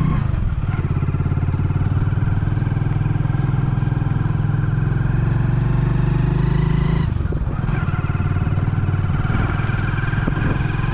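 Motorcycle engine running steadily as the bike rides along, with a brief dip in the engine note about seven seconds in.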